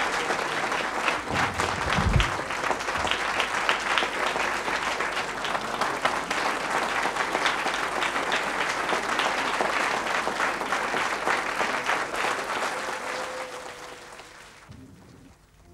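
Audience applauding: a dense, steady clapping that dies away over the last couple of seconds. There is a low thump about two seconds in.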